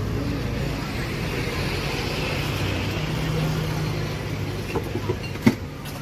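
A motor vehicle's engine running close by: a steady low hum over road noise, a little stronger in the middle. A single sharp knock about five and a half seconds in.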